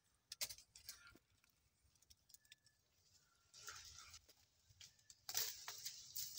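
Faint rustling and crackling in a few short spells, the loudest about five seconds in.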